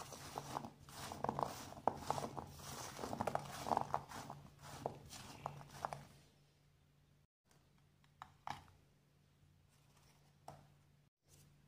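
Dry, crusted chhena murki cubes being tossed by hand in white powder on a steel plate: a rustling scrape with many small clicks of the cubes against the metal. It stops about six seconds in, leaving near quiet with a couple of faint clicks.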